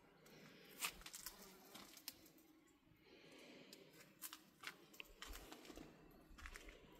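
Near silence, broken by a scattering of faint, short clicks and light rustles.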